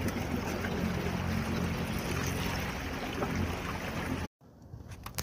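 Small boat's motor running steadily with a low, even hum over a rushing noise, cutting off abruptly about four seconds in.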